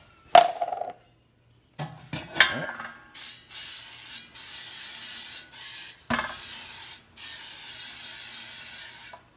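Aerosol cooking-oil spray hissing in several long bursts over the fish in an air fryer basket, after a few knocks from handling the can in the first two seconds or so.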